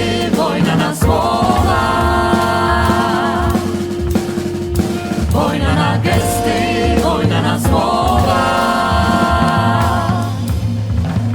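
Vocal group singing in close harmony without transcribed words, over a drum beat; two long held chords with vibrato swell about two and eight seconds in.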